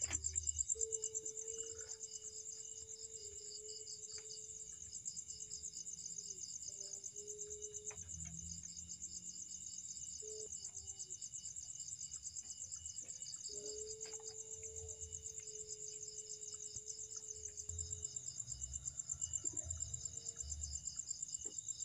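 Crickets chirping in a fast, steady trill. Over it, a level droning tone of unchanging pitch comes and goes, held for several seconds twice with short snatches between. This is the moan-like sound that the filmer hears as a person moaning in pain and takes, with some doubt, for a kuntilanak.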